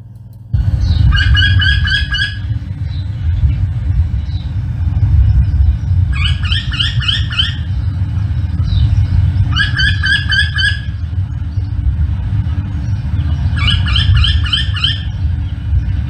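Red-throated wryneck calling: four runs of quickly repeated rising notes, each about a second and a half long and a few seconds apart, over a steady low rumble.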